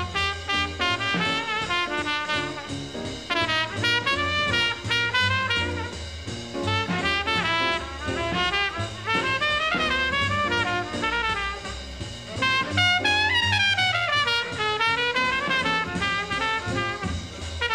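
Instrumental background music: a lead melody that rises and falls over a moving bass line.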